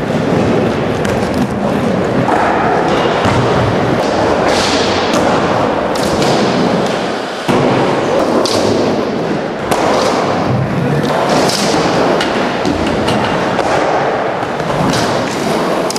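Skateboard wheels rolling loudly on wooden ramps, with repeated thuds and slaps of the board hitting the ramp surface.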